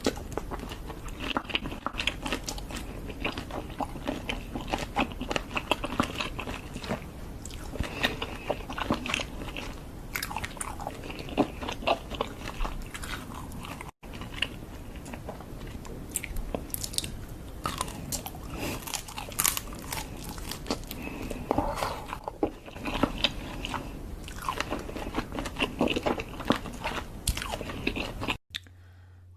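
Close-miked eating of seafood: dense, irregular crunching, biting and chewing. Near the end it cuts off to a faint low hum.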